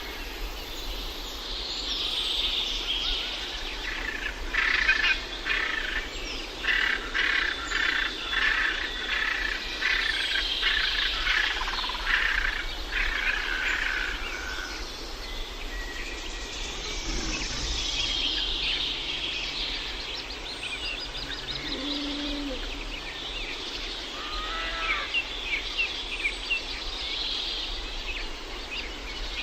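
Several birds singing and chirping in a dense, overlapping chorus over a steady outdoor hiss.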